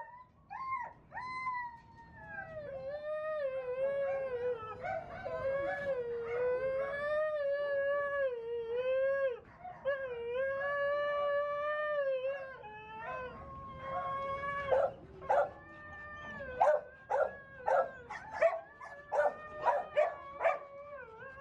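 A dog howling in long, wavering calls, then breaking into a run of short, sharp yipping barks about two a second.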